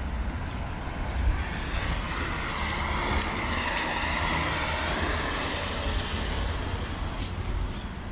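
A road vehicle passing close by: its tyre and engine noise swells to a peak about four seconds in, then fades, over a steady low traffic rumble.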